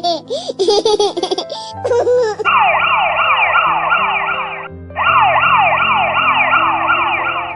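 A baby giggling over background music, then an emergency siren sounding in quick repeated pitch sweeps, which breaks off briefly and starts again.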